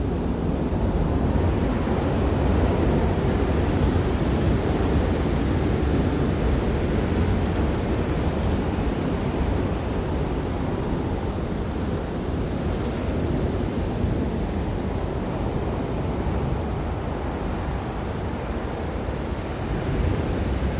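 Steady rushing noise of wind and surf, heaviest in the low end, with wind buffeting the microphone.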